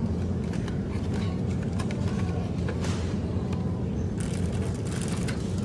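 Steady low hum of supermarket background noise, with light clicks. From about four seconds in, a plastic rustle as a shrink-wrapped multipack of milk bottles is taken off the shelf.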